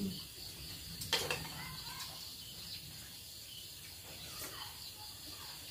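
Crickets chirping steadily in a high, even drone, with a single sharp click about a second in.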